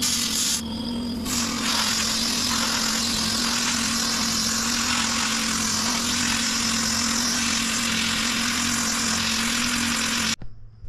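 Harbor Freight pressure sandblaster blasting sand from a hand-held nozzle onto weathered teak wood: a loud, steady hiss with a steady hum underneath. The hiss eases briefly about a second in, and the sound cuts off suddenly near the end.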